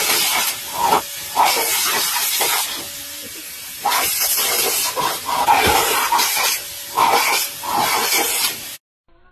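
Vacuum cleaner's crevice nozzle hissing with rushing air, the sound swelling and dropping over and over as a dog snaps and mouths at the nozzle. It cuts off suddenly near the end.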